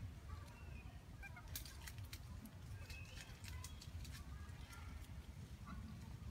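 Several faint, short, high chirping calls with slight upward glides, scattered among a few sharp clicks over a steady low rumble.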